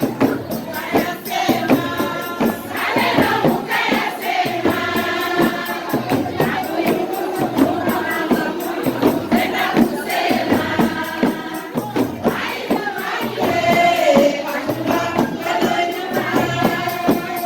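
Live music: a group of voices singing together over fast, busy percussion.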